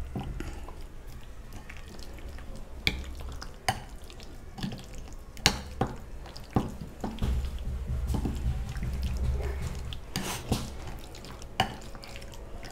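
Metal spoon stirring chunks of chicken through a wet yogurt-and-spice marinade in a glass bowl: wet squelching, with irregular sharp clicks of the spoon against the glass.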